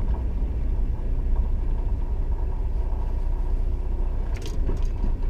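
Diesel engine of a Volvo VNL 780 semi truck running, heard inside the cab as a steady low rumble.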